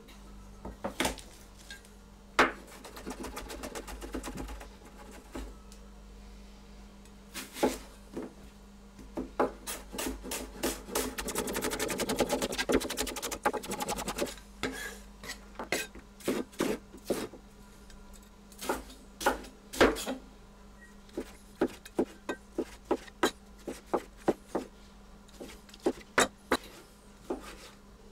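Kitchen knife chopping onion and tomatoes on a wooden cutting board: separate knocks of the blade on the board and two stretches of fast chopping, a longer, denser one from about ten to fourteen seconds in. A steady low hum runs underneath.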